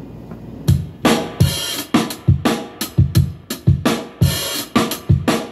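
Recorded drum-kit beat played back, with kick drum and snare hitting in a steady groove under hi-hat and cymbal, starting about a second in.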